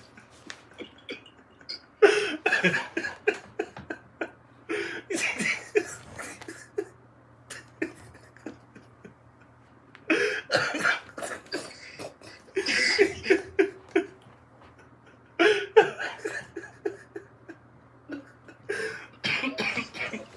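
A man's voice in short bursts of unintelligible vocal sounds, several separate spells with pauses between them, over a faint low steady hum.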